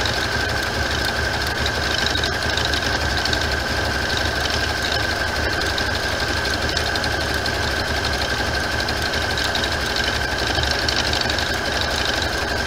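Computerized sewing machine running steadily at speed, stitching an appliqué stitch around a fabric appliqué, its motor giving a steady high whine.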